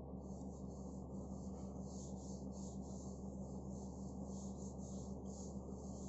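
Graphite pencil scratching across drawing paper in a run of quick, light sketching strokes, over a steady low hum.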